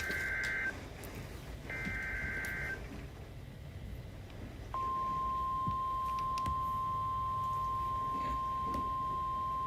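Emergency Alert System SAME header data bursts from a NOAA Weather Radio broadcast: two one-second bursts of raspy two-tone warbling, a short gap, then the steady single-pitch 1050 Hz weather radio alert tone that starts about five seconds in and holds. The sequence announces a tornado warning.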